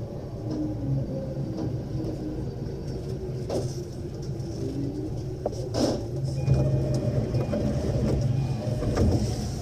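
Low steady rumble inside a Keihin-Tohoku line commuter train's cab area as the train slows to a stop at the platform, with a brief hiss about six seconds in.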